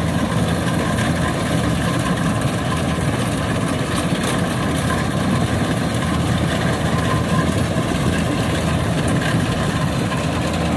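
Kubota DC-93 rice combine harvesters running steadily, the nearer one's diesel engine working under load as it cuts flattened rice in deep mud.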